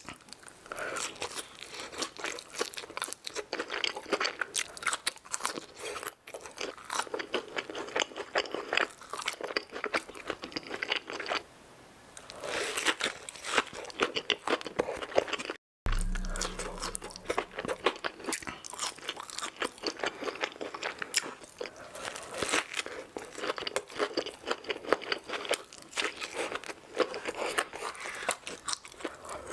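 Close-miked eating: crisp bites into fried chicken and fries, then steady chewing with wet mouth sounds. The sound cuts out briefly about halfway through.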